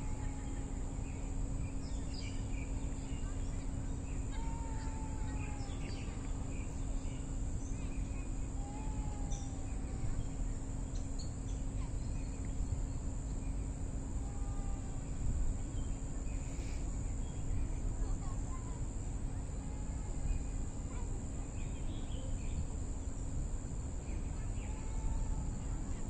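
Outdoor park ambience: a steady low rumble of distant city traffic and a constant high insect drone, with birds calling over it. One bird repeats a short whistled call every few seconds, with scattered brief chirps in between; a steady low hum runs underneath.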